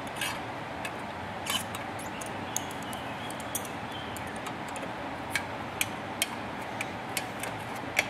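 Scattered light metallic clicks and taps as a sheet-metal control box with brass air fittings is handled and worked off its air hose, with pliers on the hose fitting near the end. A steady low hiss lies underneath.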